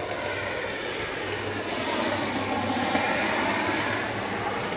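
Lake State Railway freight train passing: the diesel locomotives' steady engine hum under the rumble of wheels on rail, which swells to its loudest about two to three seconds in as the locomotives and first cars go by.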